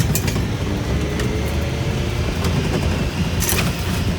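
Off-road vehicle engine running steadily on a trail ride, with a short sharp knock just after the start and a louder one about three and a half seconds in.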